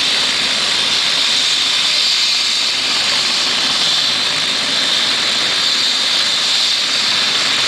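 Turbine helicopter running at close range with its main rotor turning, just above the ground: a steady rushing noise with a high, even turbine whine.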